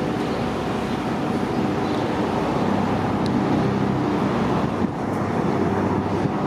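R68A subway train running in on the elevated steel track, giving a steady noise with a low hum through it.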